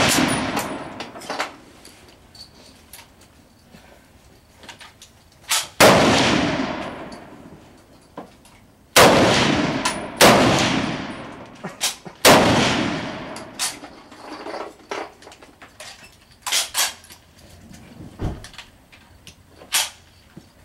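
Rifle shots on a firing range: five loud shots a few seconds apart, the first right at the start, each ringing out with an echoing decay of a second or two, with fainter cracks and clicks between them.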